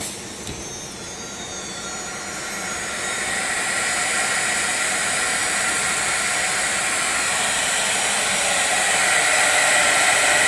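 Engraving spindle of a CNC wood lathe starting its automatic run: a click, then a high-pitched whine with a hiss that builds over the first few seconds and holds steady, growing a little louder near the end.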